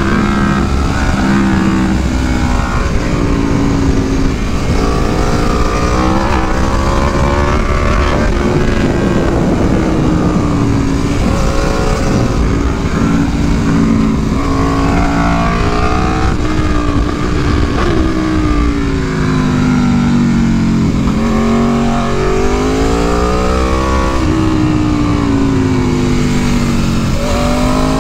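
Aprilia Tuono V4 engine heard from on the bike, revving up and down over and over as it accelerates hard, shifts and backs off through a run of curves.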